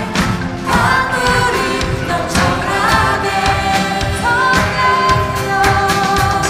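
Live worship band playing a praise song: voices singing a held melody over electric guitar and electric bass.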